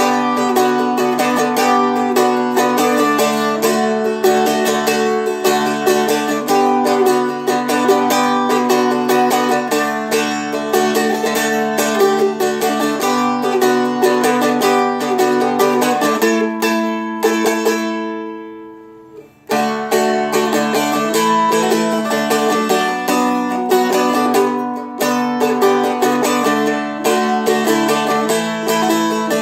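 Seagull Merlin M4, a four-string strumstick-type dulcimer, being strummed with a flatpick in steady chords with a drone. About seventeen seconds in, one chord is left to ring and fade, then the strumming starts again abruptly.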